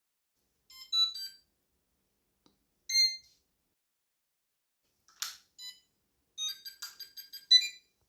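Short electronic tones from an Android phone, like a ringtone or notification: a brief chime-like jingle about a second in and another about three seconds in, then a short noisy blip and a quick run of high beeps near the end.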